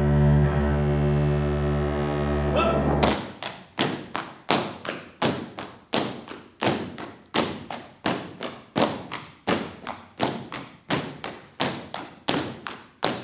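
A held chord from two violins, a button accordion and a double bass ends about three seconds in. Then comes a steady beat of feet stamping on a stage floor, about three stamps every two seconds, each with a short echo.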